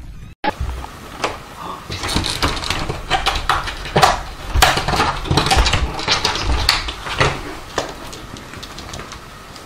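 A cat jumping against a door, with knocks and thumps as it strikes the door and claws scraping on it, repeated many times.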